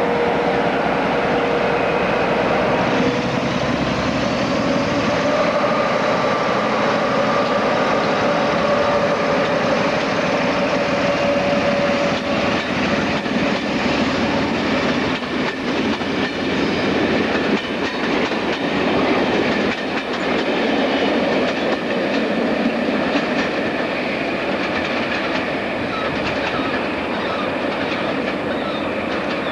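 A diesel train running by on the rails, its engine and transmission giving a steady whine for the first twelve seconds or so. After that, the rhythmic clickety-clack of wheels over rail joints dominates until the sound drops off suddenly at the end.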